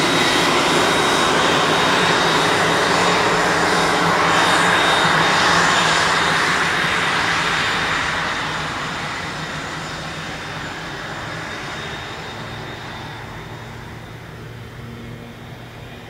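Twin Pratt & Whitney PW535A turbofans of a Cessna 560 Citation Encore business jet taxiing close by: a steady high whine over a rushing hiss. It fades steadily from about halfway through as the jet moves away.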